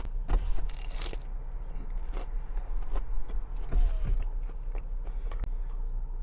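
A person chewing a mouthful of crunchy fried sushi, with irregular crisp crunches.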